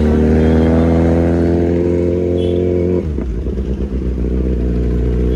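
Kawasaki Ninja Z900's inline-four engine, fitted with an SC Project full exhaust, heard from the rider's seat, running at a steady throttle. About three seconds in, the note drops suddenly and turns ragged for about a second, then runs steady again.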